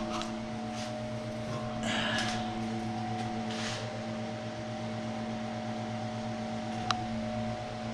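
A steady mechanical hum made of several fixed tones, like a fan or heater running, with faint rustling about two and three and a half seconds in and a single sharp click near the end.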